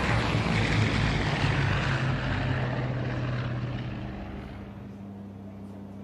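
Propeller aircraft flying past: a steady engine drone with a low hum, loudest early and fading away after about four seconds.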